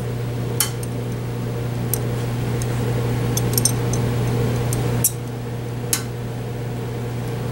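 Steady low background hum with a few scattered light metallic clicks and clinks from a small wrench and steel nuts being worked on a loose stud.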